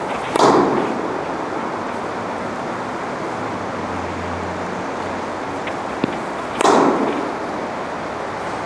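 Tennis racket striking a ball twice, about six seconds apart, each hit sudden with a short echo in an indoor court hall, and a faint ball bounce just before each. A steady hiss runs underneath.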